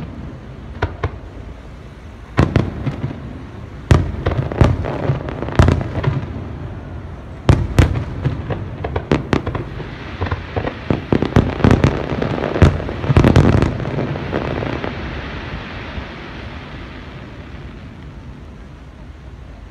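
Aerial firework shells bursting in the sky: scattered bangs at first, then a dense run of bangs with crackling from about ten to fourteen seconds in, dying away to a low rumble.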